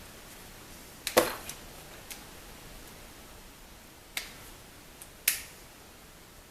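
A few sharp metal clicks from locking pliers (Vise-Grips) gripping and working a pin out of a glove box hinge piece. The loudest is a double click about a second in, with two more near the end.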